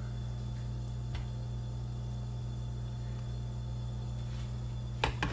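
A steady low electrical hum, with a faint click about a second in and a couple of brief clicks near the end.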